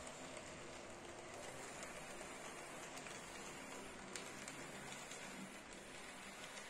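HO-scale model train (IHC/Mehano 4-8-2 Mountain steam locomotive hauling passenger coaches) running along the track: a faint, steady rattle of wheels and motor with a few small clicks.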